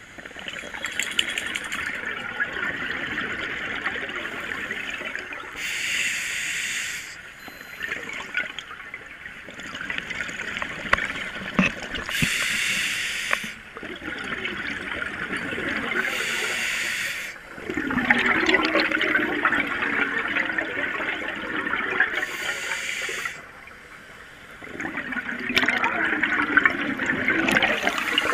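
Scuba diver breathing through a regulator underwater: short hissing inhales alternate with longer gurgling rushes of exhaled bubbles, a breath about every five or six seconds.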